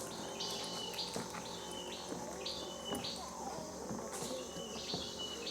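An animal in the mangrove calling over and over, about two calls a second with a short pause midway, each a high buzz that ends in a brief whistle-like note. Faint clicks and rustles run under it.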